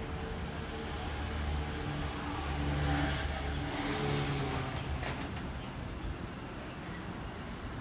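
A motor vehicle's engine passing on the street, its hum and tyre noise growing louder to a peak about three seconds in and then fading away.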